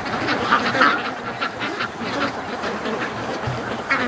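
A large flock of domestic ducks quacking and chattering continuously, many calls overlapping.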